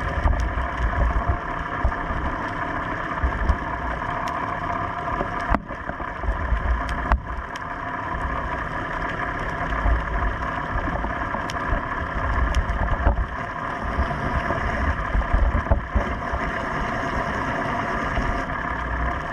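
A small fishing boat's engine running steadily, with irregular low rumbling gusts and a couple of sharp knocks.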